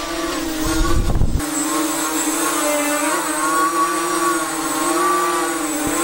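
Eachine Falcon 250 quadcopter's brushless motors and propellers whining as it lifts off and hovers, the pitch wavering with throttle. There is a low rumble for about the first second and a half as it leaves the floor. The flight sounds much more quiet, with no rattle from the newly fitted landing skids.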